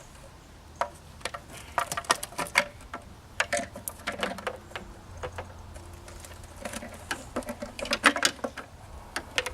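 Irregular clicks and knocks of a plastic taillight assembly and its bulb sockets being handled and worked loose by hand.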